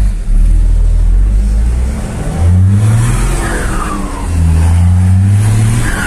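Ford F-250 pickup's engine on a straight-through exhaust, heard from inside the cab: a deep rumble that rises twice as it revs up under acceleration. Each rev is followed by a falling whistle as the turbo spools down.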